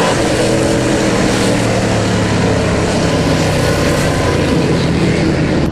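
Dirt late model race car's V8 engine running at a steady pitch, cutting off abruptly at the end.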